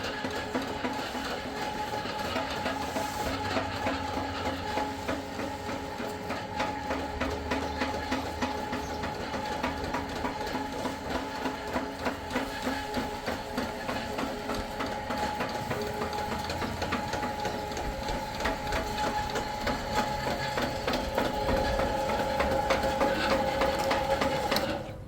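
A machine running steadily: a fast, even mechanical rattle over a few held tones, cutting off suddenly near the end.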